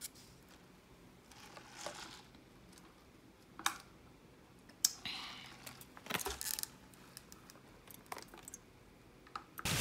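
Takeout food packaging handled on a table: scattered sharp clicks and taps of plastic cups, lids and containers, with brief soft rustling of the paper box and foil between them.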